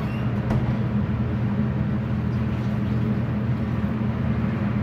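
Steady low mechanical hum with a haze of background noise, and a faint click about half a second in.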